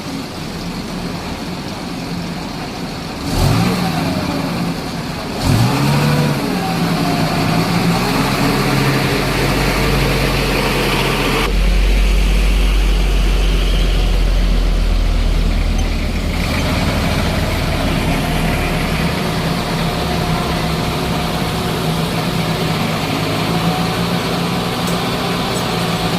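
A vehicle engine revving up sharply twice, its pitch rising each time, then running on steadily at raised speed with a deep low rumble.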